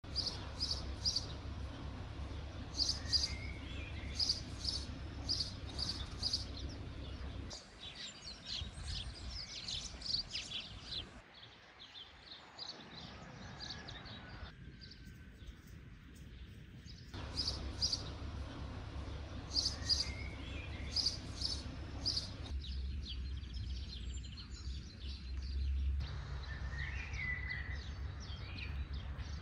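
Small birds chirping in quick, repeated high notes over a low steady rumble. The background sound changes abruptly several times.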